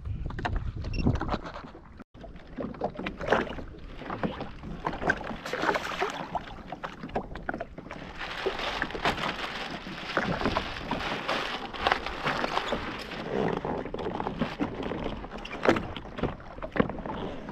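Knocks and rustling as a plastic chum bag is handled and lowered over the side of a drifting jet ski, with water gurgling against the hull.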